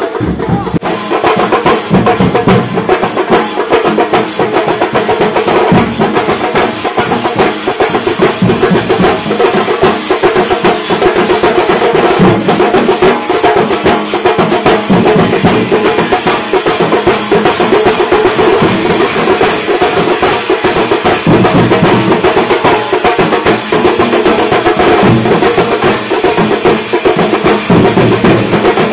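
Loud, continuous music driven by fast, dense drumming.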